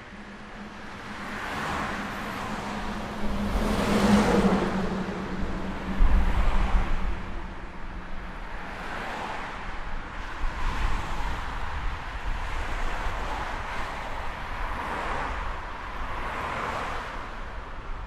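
Road traffic with cars passing one after another, each one swelling and fading. The loudest pass, about four seconds in, carries a steady low engine hum.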